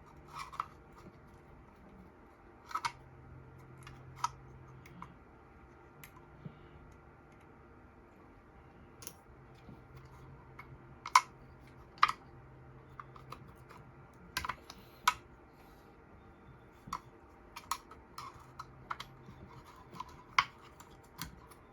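Irregular small clicks and taps of hand tools and plastic and metal parts as a Hiblow septic air pump is taken apart and a stubborn piece is worked loose.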